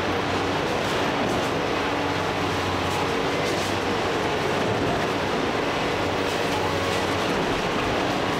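Komatsu PC490 heavy-duty excavator's diesel engine running steadily under load, with the dense grinding and crunching of demolition debris and a few faint knocks.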